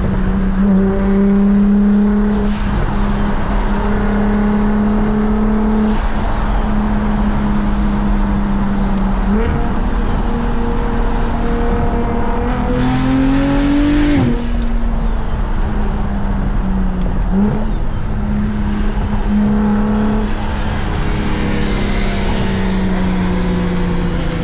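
Single-turbo BMW 335is N54 inline-six running at a steady cruise. Its pitch dips a few times and climbs briefly around halfway, then drops off sharply. A high whistle rises and holds several times over it.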